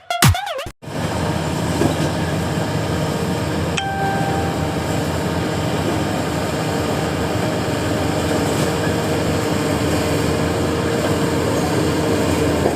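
Intro music cuts off under a second in, giving way to the steady running of heavy diesel earthmoving machinery, an excavator at work loading a dump truck. About four seconds in, a short single tone sounds briefly over the engine noise.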